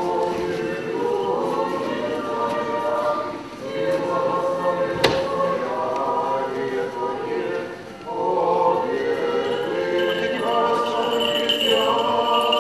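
Orthodox church choir singing a slow chant in several voices, held notes in phrases with brief breaths between them. A single sharp knock sounds about five seconds in.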